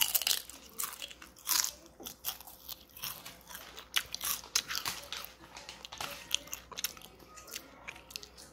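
A toddler chewing and biting crunchy food, with many irregular sharp crunches.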